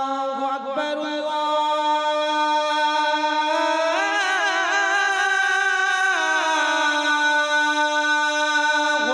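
Wordless vocal interlude of a naat sung without instruments: a voice holding long notes that slide and turn, with ornamented melodic runs in the middle.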